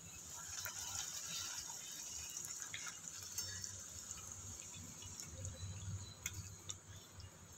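Hot oil sizzling steadily around a puri deep-frying in a kadhai, with scattered small crackles.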